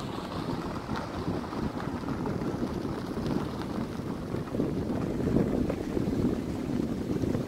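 Steady low rumble of a vehicle driving along a dirt road, with wind buffeting the microphone.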